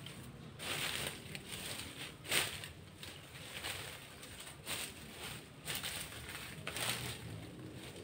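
Rustling and crunching in dry leaves and brush, in about six short separate bursts, the loudest a little over two seconds in.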